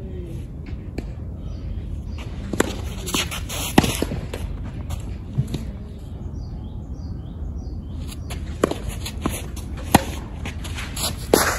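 Sharp, single knocks of tennis balls being struck and bouncing, spaced a second or more apart, over a steady low outdoor rumble.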